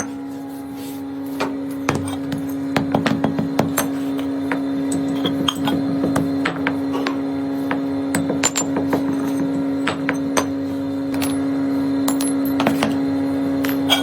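Irregular sharp metallic taps and clinks over a steady humming drone, the sound of metalwork at a bell workshop.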